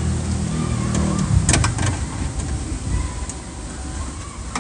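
A quick cluster of three or four sharp clicks from a car door handle assembly being worked by hand, about one and a half seconds in, over a low rumble.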